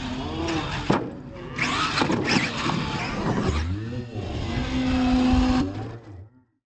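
R/C monster truck's electric motors whining, the pitch rising and falling as the throttle is blipped, with a sharp thud of a landing just under a second in. The sound cuts off suddenly near the end.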